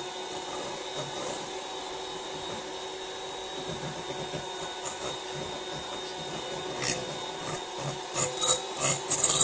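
Handheld electric mixer running steadily, its beaters creaming margarine and sweetened condensed milk in a glass bowl, with a few short clicks near the end.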